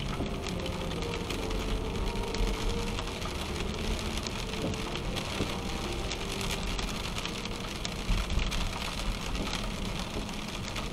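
Rain pattering on a car's windshield and roof, heard from inside the moving car over a steady low rumble of tyres on wet pavement.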